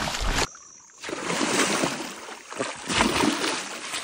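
Water splashing and sloshing as a large hooked fish struggles at the surface. The sound cuts off sharply about half a second in and starts again after a short lull.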